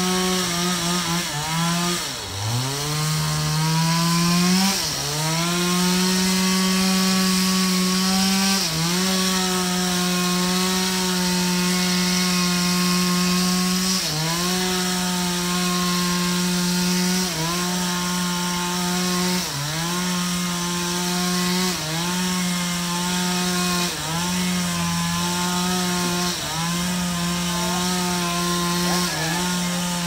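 Two-stroke petrol chainsaw running at high throttle as it cuts through a large log. The engine note sags about two seconds in, then climbs back. After that it dips briefly and recovers every two to three seconds as the chain bogs in the wood.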